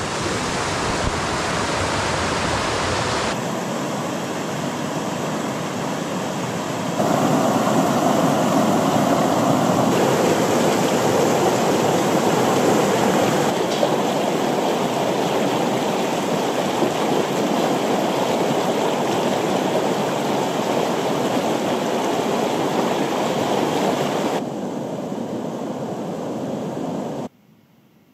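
Swollen mountain stream in spate, its water rushing and splashing over rocks, in several clips of differing loudness. Near the end it cuts off suddenly to a faint hush.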